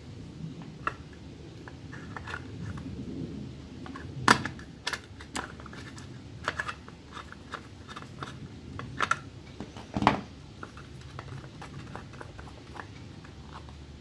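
Irregular small clicks and taps of metal nuts, a bolt and needle-nose pliers being handled against a plastic switch bracket while the nuts are threaded on, with two sharper knocks about four and ten seconds in.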